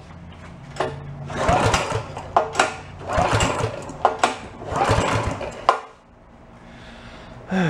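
A pressure washer's small petrol engine is cranked over by its pull starter in three pulls, each a short whirring rush, with clicks between them. The engine does not catch; it is being turned over for a spark check.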